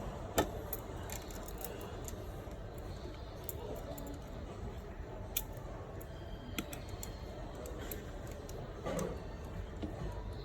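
Scattered small clicks and taps of metal tools and tiny screws and parts being handled while an iPhone 7 is reassembled into a new rear case, over a steady low background hum.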